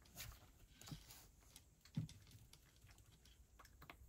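A cat eating from a dish: faint, irregular clicks of chewing and crunching, with one louder knock about two seconds in.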